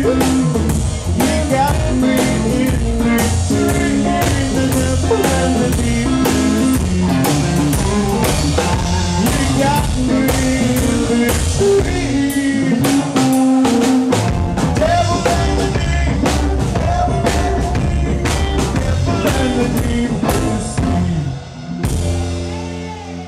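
Rockabilly trio playing live: hollow-body electric guitar, upright bass and a standing drum kit with cymbals. About 21 seconds in the song ends, and a final held chord rings out and fades.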